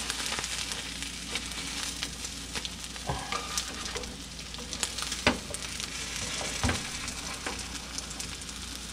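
Porcini omelette sizzling steadily in a nonstick skillet, with scattered scrapes and knocks of a slotted spatula against the pan as the omelette is flipped over on itself.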